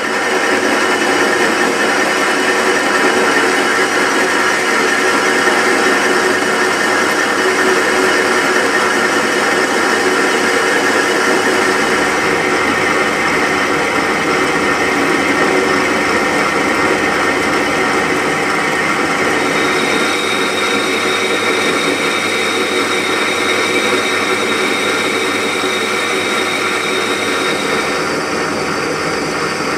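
Metal lathe running steadily, its motor and gear train whining while a cutting tool turns down a spinning metal shaft. A thin high tone joins in about two-thirds of the way through and drops away near the end.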